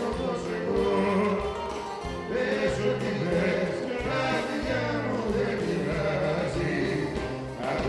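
Two men singing a Greek song into microphones, backed by a bouzouki and band.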